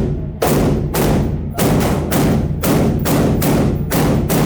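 Gunshots fired in steady succession, about two a second, each followed by a long echoing decay in the enclosed indoor range.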